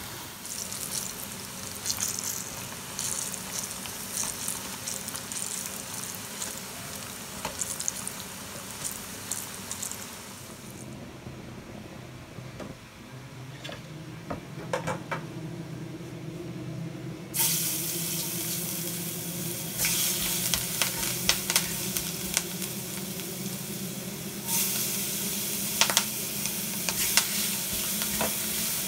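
Pork chops sizzling in hot oil in a wok, with tongs clicking against the pan. After a quieter stretch with a low steady hum, a sudden loud sizzle starts as garlic and jalapeno go into the hot oil, with a spatula scraping and stirring in the wok.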